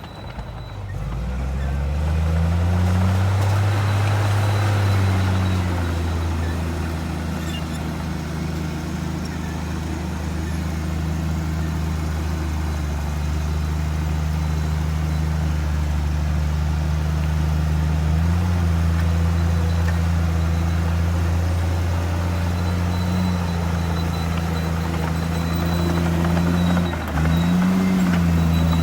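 Heavy diesel engine of earthmoving machinery running steadily under load. The revs dip and climb back up in the first few seconds, then dip and recover briefly near the end.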